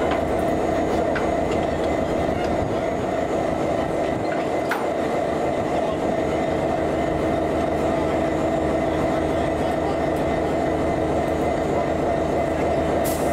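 Queensland Rail 2900 class diesel-electric locomotive running, a steady engine drone with rail and wheel noise and a few faint clicks.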